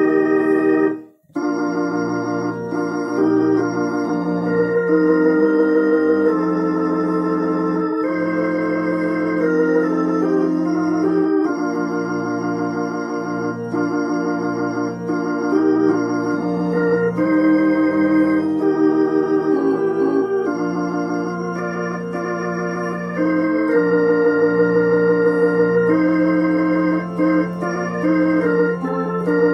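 Gospel hymn played on a Roland HP 704 digital piano set to an organ voice: full chords held steady without dying away, with a slight wavering in the tone. The playing breaks off briefly about a second in, then goes on.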